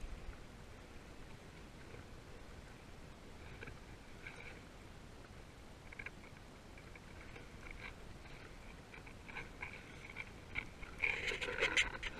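Small waves lapping and slapping against a kayak hull beside the camera, over a low wind rumble; the splashing grows louder and busier near the end.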